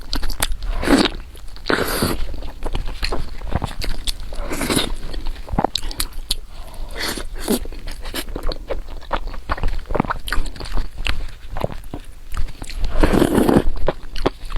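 A person chewing and biting food close to the microphone, with many small wet clicks and a few louder bursts of mouth noise, about a second in, two seconds in, near five seconds and near the end.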